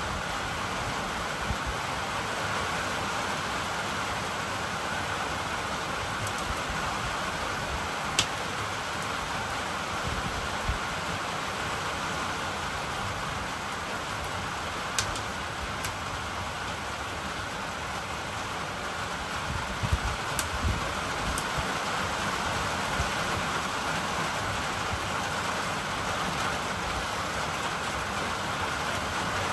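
Steady rain falling, an even hiss, with a few sharp clicks now and then.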